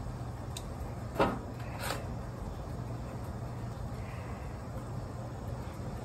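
Two sharp knocks, the first loud and the second weaker about a second later, over a steady low hum.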